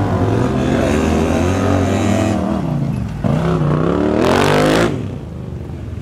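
Side-by-side UTV engine revving up and down while driving through a shallow river, with water splashing. About four seconds in, a hard rev comes with a loud rush of spray, then the engine drops back to a quieter run.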